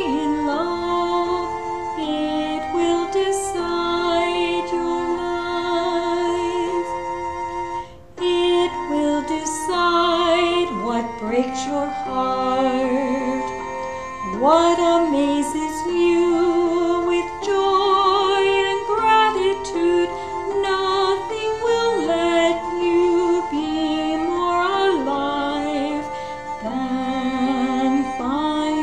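A woman singing a song with instrumental accompaniment, with a brief break about eight seconds in.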